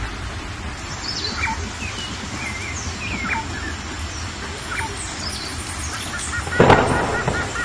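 Wild birds calling: scattered short chirps and whistles over a steady hiss, then a loud harsh call about two-thirds of the way through, with a quick series of repeated short notes toward the end.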